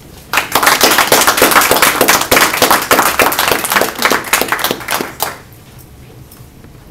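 A roomful of people applauding for about five seconds, then stopping abruptly.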